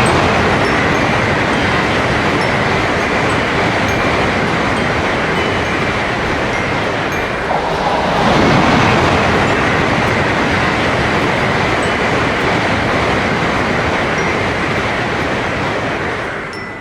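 Train passing: a steady rush of rolling noise with a thin high tone above it, swelling again about eight seconds in and dying away near the end.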